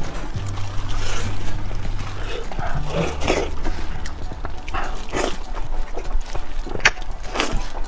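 Close-miked wet eating sounds: a soft stuffed sausage squished in a gloved hand and bitten, with short moist smacks and slurps at intervals, over a steady low hum.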